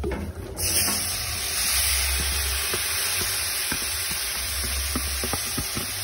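Chopped pacro (chiton) meat hitting hot oil in a pot, sizzling loudly as it fries; the sizzle starts suddenly about half a second in and keeps on steadily, with a few light taps in the middle.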